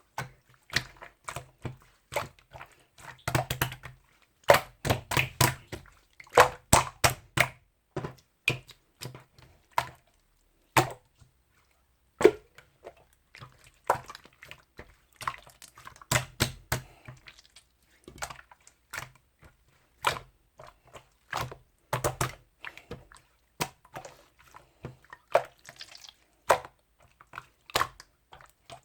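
Irregular sharp taps and clicks coming in quick clusters, some with a dull thud beneath them, with brief pauses about a third and two thirds of the way through.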